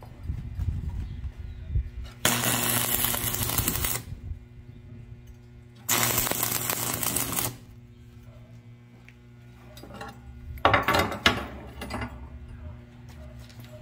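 Stick welder arc crackling and hissing in two bursts, about two seconds and one and a half seconds long, as a coil spring is welded onto a steel hammer. A quick run of sharp clicks and knocks comes near the end, over a steady low hum.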